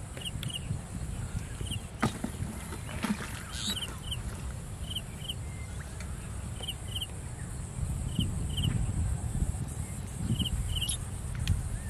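Outdoor rural ambience by a canal. There is a low rumble of wind on the microphone and a steady high insect buzz, and a bird gives short double chirps about once a second. A few faint clicks come two to four seconds in.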